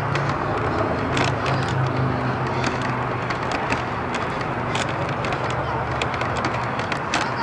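Handheld camera handling noise: irregular small clicks and rustles over a steady low hum and hiss outdoors.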